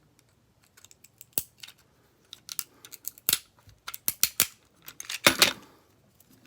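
Metal clicks and scrapes of a tool prying a metal shield off a phone's circuit board. The clicks come thicker from about two seconds in, and the loudest cluster comes just after five seconds, as the shield comes free.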